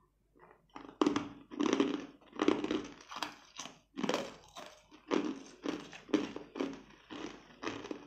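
Mouthful of frozen blue ice ball being crunched between the teeth. The crunching starts about a second in and goes on steadily at about two crunches a second.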